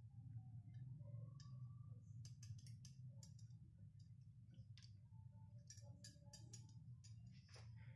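Faint, scattered clicks of metal tongs tapping the plate and bowl as the skins are pulled off boiled tomatoes, over a low steady hum.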